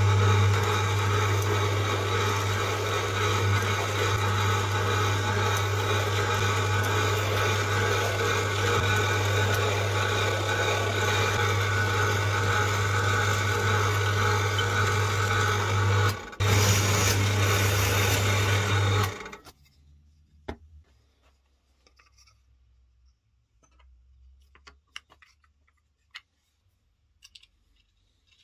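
Drill press running steadily with a low hum while its small bit cuts a slot along a plywood strip fed by hand. It cuts out briefly once, runs on, then stops suddenly about two-thirds of the way through, leaving only a few faint handling clicks.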